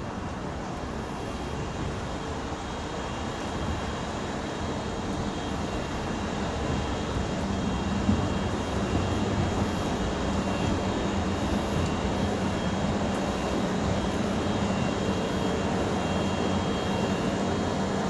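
A container freight train departing and rolling past, its wagons running on the rails in a steady rumble that grows gradually louder.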